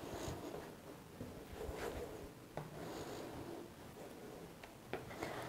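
Dough scraper cutting through soft dough and scraping across a wooden pastry board: soft rubbing strokes with a couple of light taps.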